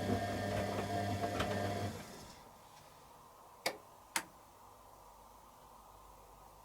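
Candy Aquamatic 100F washing machine's drum motor running with a steady hum and light ticking during the heating stage, then stopping about two seconds in. Two sharp clicks follow about half a second apart.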